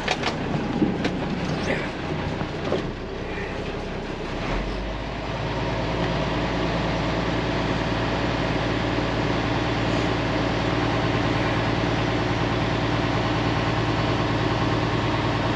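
International DT466 inline-six diesel idling in the 1986 International dump truck, with the newly fitted air compressor building up air pressure. About four and a half seconds in, the running sound turns deeper and steadier, with a few clicks before it.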